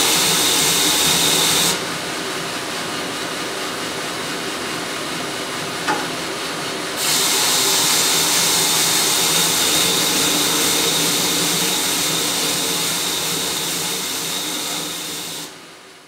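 Professional belt grinder running while the flat-grind bevel of an O1 steel knife blank is ground on it: a steady grinding hiss with a high whine. The grinding drops off about two seconds in and comes back louder about seven seconds in, then fades out near the end.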